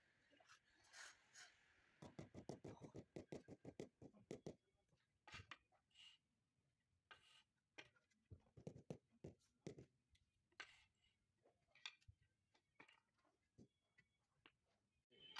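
Rubber mallet tapping a marble slab down into its mortar bed while it is set and levelled: faint taps, a quick run of them about two seconds in, then single knocks spaced out.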